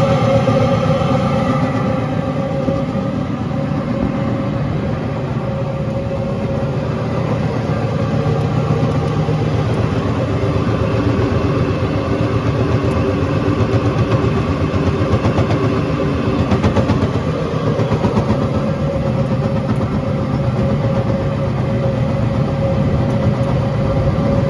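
KC Bruiser 1250 roller mill, driven by a JCB Fastrac tractor, running steadily as it rolls barley and wheat. The sound is a loud, even machine noise with a constant whine over a low rumble.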